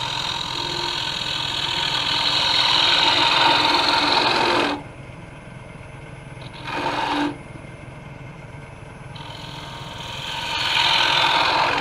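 A small gouge cutting into the end of a spinning maple blank on a wood lathe, hollowing the cup of a scoop: a rough scraping hiss in three passes, a long one of about five seconds, a short one about seven seconds in and another building near the end. The lathe's steady hum runs underneath.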